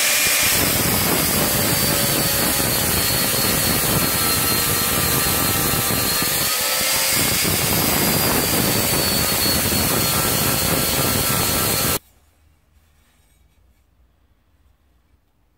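Angle grinder with an abrasive disc grinding a corroded steel billhook blade: a steady high motor whine over a loud grinding rasp. It cuts off abruptly near the end, leaving near silence.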